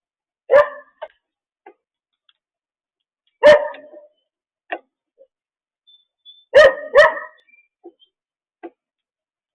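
A dog barking: four loud barks, one about half a second in, one near the middle and a quick pair near the end, with fainter short sounds between them.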